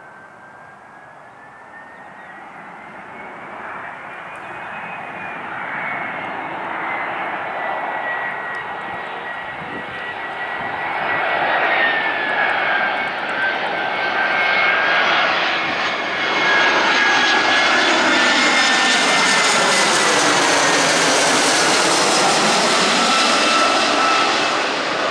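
Airbus A320-214's CFM56-5B turbofan engines on landing approach: a jet rushing noise with a high fan whine, growing steadily louder as the airliner closes in and passing overhead near the end.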